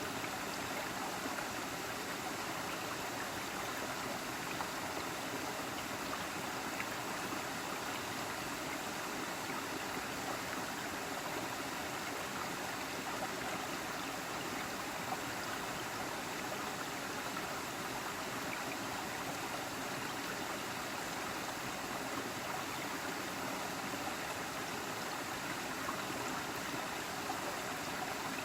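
Small waterfall and stream flowing steadily, an even rush of falling and running water.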